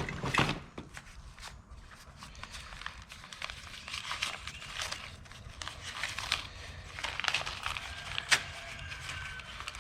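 Hands rummaging through a box of nails and small hardware: scattered clicks and clinks of metal bits with rustling, and one sharper knock about eight seconds in.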